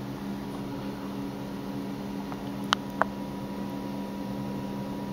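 A steady low hum in the room, with two short, sharp clicks about a third of a second apart midway through as the pages of a paperback art book are handled and turned.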